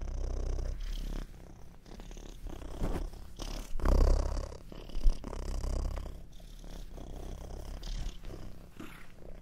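Domestic cat purring, a low continuous rumble that swells and fades with its breathing, loudest about four seconds in, with one sharp click about five seconds in.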